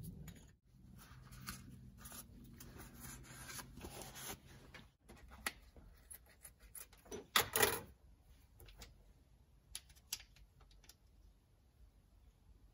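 Cloth shop towel rubbing over a metal air-valve housing as it is wiped clean, over a low steady hum, then plastic packaging rustling and tearing, loudest just past halfway, with a few small clicks of parts handled on the bench.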